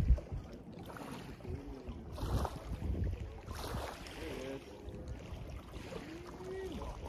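Gusting wind on the microphone over small-boat sounds on open water, with faint distant voices about halfway through and again near the end.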